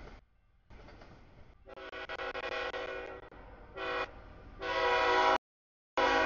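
CSX freight locomotive's air horn sounding for the grade crossing as the train approaches: a long blast starting a couple of seconds in, a short blast, then a louder long blast that cuts off suddenly into dead silence before the horn comes back near the end.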